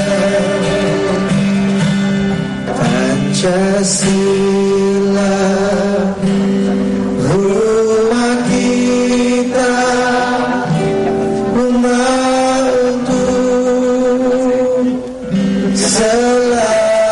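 A song sung with guitar accompaniment, the voice holding long, drawn-out notes.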